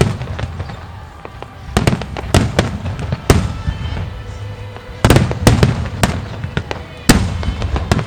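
Wide starmine firework display: aerial shells bursting in quick volleys of sharp booms, each with a rumbling tail. There is one cluster, a lull around four seconds in, then a denser cluster.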